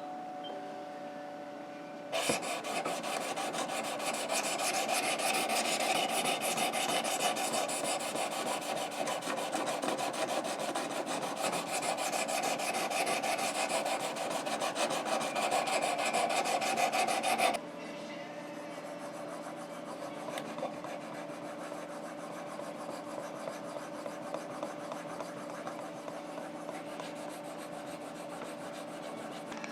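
Sharpening stone stroked rapidly back and forth along the edge of a Spyderco Native 5 knife blade, a dense scraping rasp that starts about two seconds in and stops abruptly at about seventeen seconds. After that there is only a faint steady hum with light scattered ticks.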